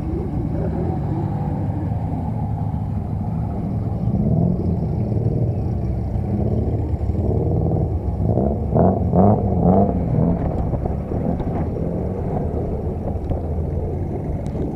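Car engines running as cars drive slowly into the show arena, with brief revving in the middle.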